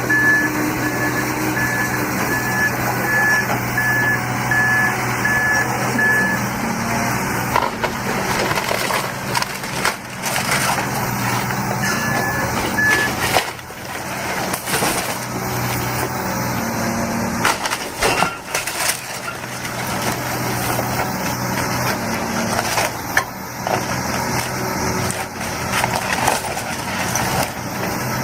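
Heavy construction machine working on demolition: the engine runs steadily while a reversing alarm beeps in a steady high pattern for the first six seconds and again briefly near the middle. Throughout there are repeated cracks and crunches of material being broken and crushed.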